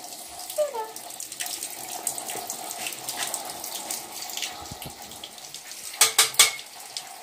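Pieces of eggplant frying in hot oil in a wok: a steady crackling sizzle. About six seconds in comes a brief burst of sharp metal clacks from a utensil against the pan.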